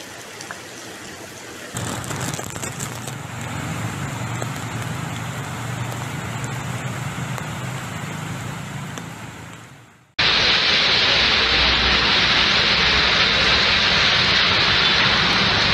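Cars and motorbikes driving through a flooded street, engines running under a wash of water. About ten seconds in it cuts abruptly to the loud, steady hiss of heavy rain on the road.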